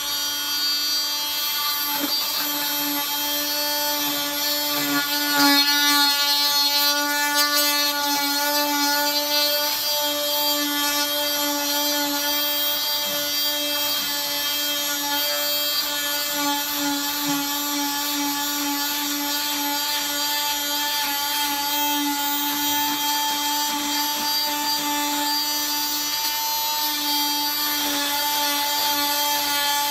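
Oscillating cast saw running with a steady whine as its vibrating blade cuts through the fiberglass of a TCC-EZ total contact cast.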